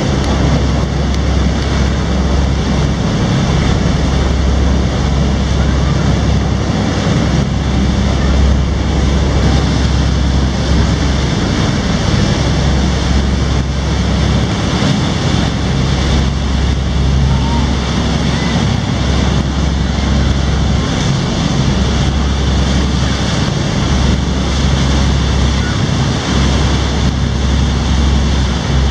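Steady rumble of a boat under way: engine noise, wind buffeting the microphone and water rushing past the hull.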